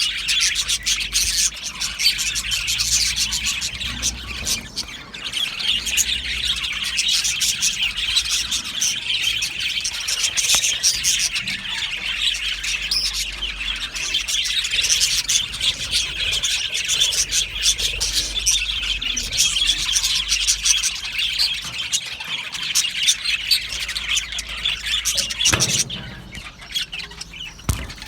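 A flock of budgerigars chattering and chirping continuously, in many overlapping high warbles. Near the end there is a single click, and the chatter drops quieter for a couple of seconds.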